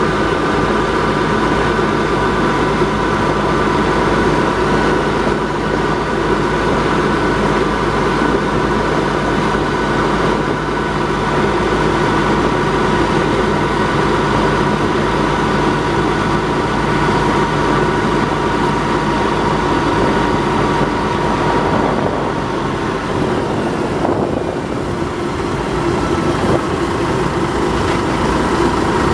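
Small diesel shunting locomotive's engine running steadily under way, heard close to its engine hood. The engine note eases off briefly about 22 seconds in.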